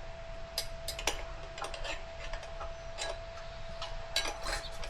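Scattered metal clicks and clinks as hand tools knock against each other and the motorcycle rim during tire mounting, over a steady faint hum.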